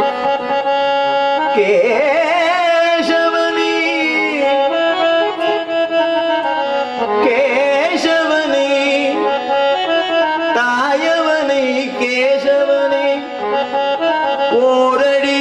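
Harmonium playing a devotional bhajan melody with sustained reed tones, while a man sings long, ornamented vowel runs over it.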